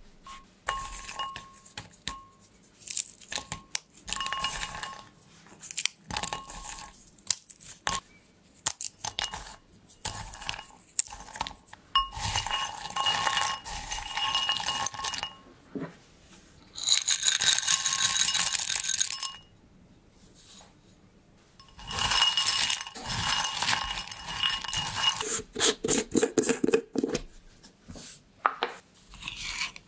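Pecans being handled and broken up by hand in a glass bowl: nuts clinking against the glass and crackling as they are crushed between the fingers, in bursts with short pauses.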